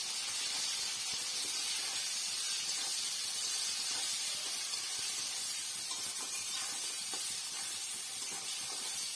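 Chopped onion and tomato frying in hot oil in a metal kadai: a steady sizzling hiss.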